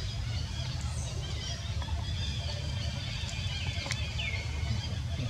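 Steady low outdoor rumble, with faint high chirping calls that slide downward and a few small ticks and splashes from the water.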